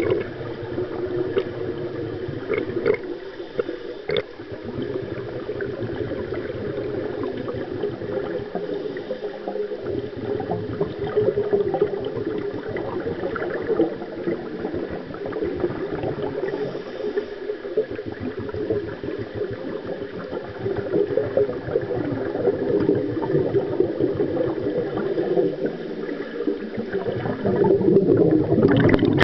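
Swimming-pool water heard underwater: a muffled, continuous churning and bubbling from swimmers' strokes and kicks, louder near the end as a swimmer passes close.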